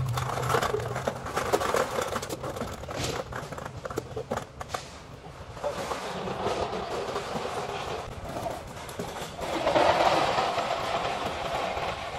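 Bagged recyclables clattering and rustling as they are handled and lifted out of plastic bins, a run of irregular clicks and knocks.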